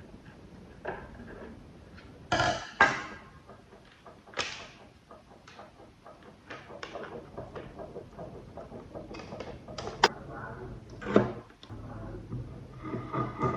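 Hard parts being handled and worked by hand: a few sharp knocks and clicks, loudest about two and a half seconds in and again around ten and eleven seconds, with scraping and rustling between them.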